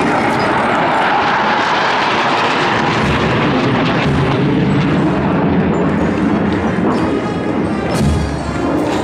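Military marching band playing a march on brass instruments, trumpets and sousaphone among them, with deep drum thuds about three seconds in and again near the end.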